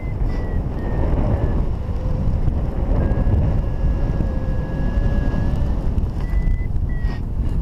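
Airflow buffeting the microphone in flight under a paraglider, with a flight variometer's high electronic beeps over it: a few short beeps dropping in pitch early on, one long held tone in the middle, and short beeps again near the end. The changing beeps are the variometer reporting the glider's rate of climb or sink.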